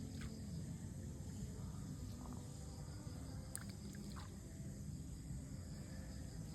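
Outdoor ambience: a steady low rumble under a faint, steady high insect hum, with a few faint short chirps.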